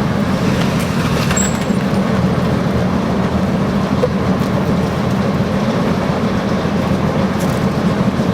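The Maybach HL 120 V12 petrol engine of a Panzer IV Ausf. G running steadily, with an even, low-pitched note.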